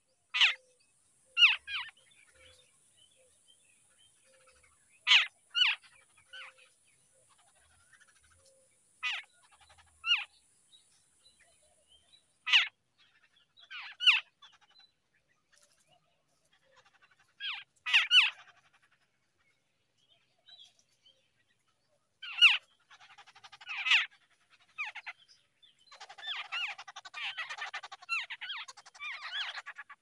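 Jungle babblers calling: short, sharp calls, mostly in pairs, every few seconds. Near the end they break into rapid, harsh chattering as the nestlings beg with open bills.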